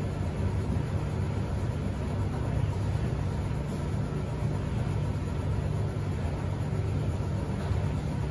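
Commercial front-loading washing machine on its final high-speed spin: a steady low rumble from the fast-turning drum, even throughout.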